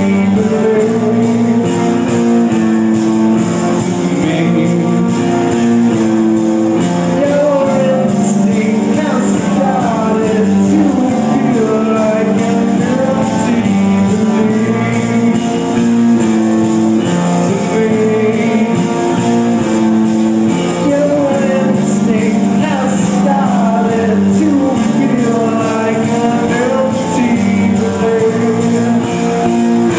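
Live rock band playing loud and without a break: electric guitars, drums and keyboard, with a voice singing over them.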